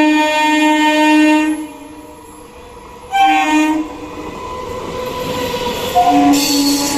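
Electric multiple unit (EMU) local train's horn blowing: a long loud blast that stops about a second and a half in, a short blast around three seconds in, then a long blast again near the end. Between the blasts the train's running noise grows steadily louder as it approaches.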